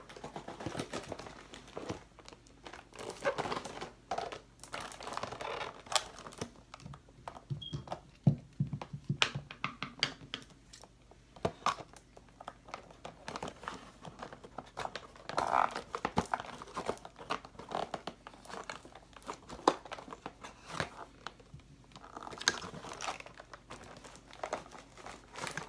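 Cardboard and plastic toy packaging being handled and opened by hand: irregular crinkling, rustling and tearing, with scattered knocks and clicks.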